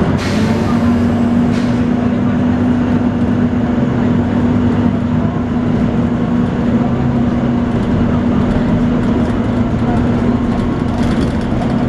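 Volvo B9TL double-decker bus running with its cooling fan 'hoovering': a steady vacuum-cleaner-like drone holding one pitch over the engine rumble. A short hiss at the very start.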